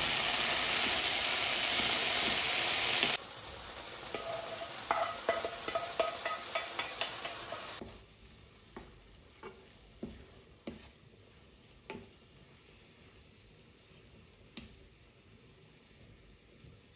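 Mushrooms and onions sizzling loudly in a nonstick frying pan, cutting off abruptly about three seconds in. Then quieter sizzling with a wooden spatula clicking and scraping against the pan as the food is stirred. In the second half there are only occasional single taps of the spatula on the pan.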